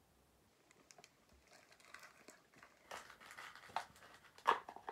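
Plastic bags crinkling and rustling as small items are handled, in short spells with small clicks, getting louder toward the end after a quiet first second or so.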